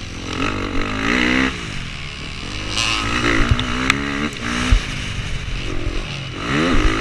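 Dirt bike engine revving hard on a bumpy grass-and-dirt track, its pitch repeatedly climbing and dropping back as the rider works the throttle and shifts. A few sharp knocks cut in around the middle.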